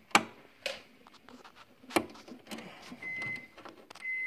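Precision screwdriver working a tight mounting screw in a metal amplifier chassis: sharp metallic clicks, then short, steady, high squeaks about once a second near the end.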